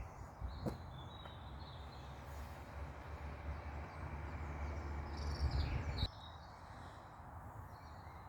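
Faint outdoor ambience: a low rumble that builds over a few seconds and cuts off suddenly about six seconds in, with a few faint bird chirps and a couple of light knocks near the start.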